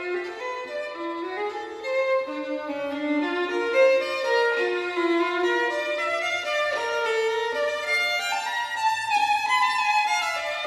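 Instrumental music: a violin-like melody of held notes moving step by step, with no drums or beat.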